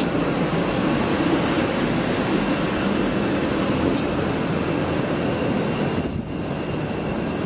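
Air conditioning units running: a steady rushing drone with a faint high steady whine, dipping briefly about six seconds in.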